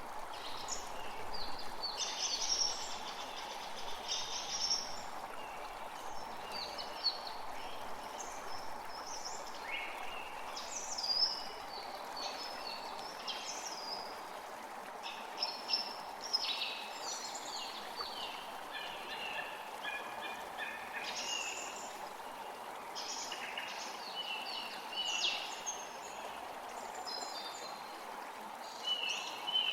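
Forest creek running steadily, with many songbirds chirping and calling over it in short repeated phrases.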